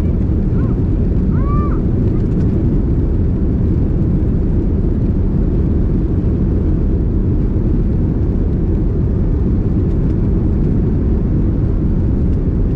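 Steady low rumble inside the cabin of a Boeing 787-10 as it taxis onto the runway. The engines are at taxi power, with no spool-up for the takeoff roll yet.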